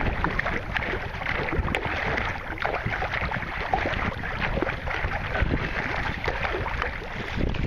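Sea kayak being paddled with a double-bladed paddle: the blades dip and splash in the water stroke after stroke, with steady wind noise on the microphone.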